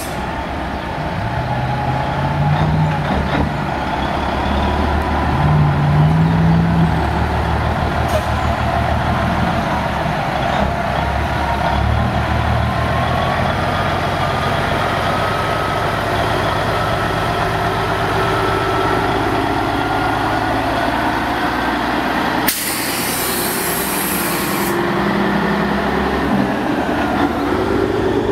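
Diesel engine of an American long-nose truck with open exhaust stacks, pulling away and running through its gears, with a faint whine that slowly rises in pitch. About two-thirds of the way through, a sharp click and a loud hiss of air brakes lasting about two seconds.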